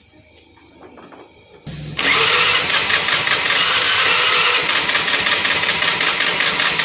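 Electric starter cranking a Honda Vario 110 carburettor scooter's single-cylinder four-stroke engine, starting about two seconds in and running on steadily without the engine catching. The engine won't fire on the electric starter, which the mechanic suspects comes from incorrect top (cam) timing.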